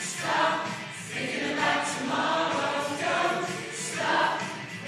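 A group of adult voices, mostly women's, singing together as an amateur choir, in phrases that swell and fall.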